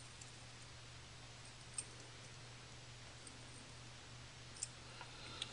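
A few faint clicks of round-nose pliers and stainless steel wire as the wire's tag end is wrapped around the spinner's shaft, over a low steady hum. The clearest click comes about two seconds in, with two more near the end.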